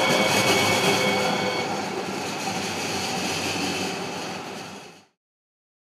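VTA light rail train running past close by and moving away: a steady rail noise with a few faint high tones over it, easing off after about four seconds and cutting off abruptly about five seconds in.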